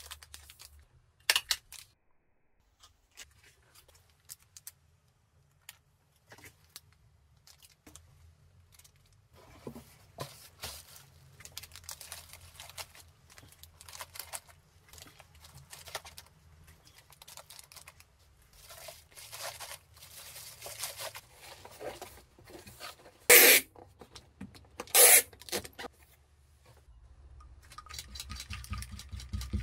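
Order-packing sounds: a small stapler clicks shut on a cellophane bag, then plastic bags and bubble wrap rustle and crinkle as items go into a cardboard box. About two-thirds of the way through come two short, loud tearing sounds a couple of seconds apart. Near the end a lint roller rolls over a cotton tote bag.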